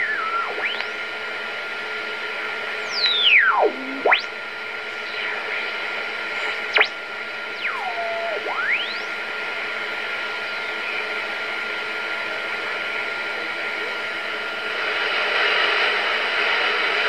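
Static hiss from a BC-348-N receiver being tuned across the 20-metre band with its BFO on: several heterodyne whistles sweep down and back up in pitch as the dial passes signals. The hiss grows louder near the end.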